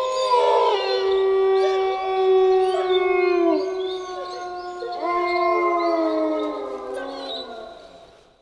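A pack of wolves howling in chorus: several long howls at different pitches overlap, some held steady and some sliding down. A fresh round of howls rises about halfway through, then dies away near the end.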